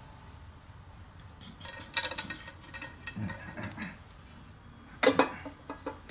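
Metal clicks and clinks from bolts and the aluminium clutch cover being handled as the cover is offered up to a BMW K1200R engine. There is a sharp cluster of clicks about two seconds in, faint rattling after it, and a louder cluster about five seconds in.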